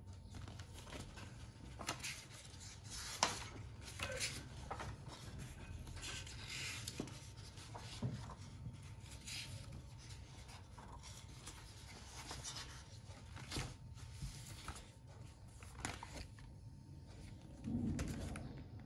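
Paper pages of an activity book being handled and turned, with rustles and small clicks and taps from hands on the card and plastic paint palette. Near the end there is a soft, louder thump as the book is closed.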